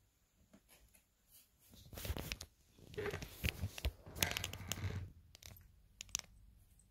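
Cat clawing and rubbing against a corrugated cardboard scratcher: scratchy, rasping cardboard rustles with sharp clicks, loudest in bursts from about two to five seconds in.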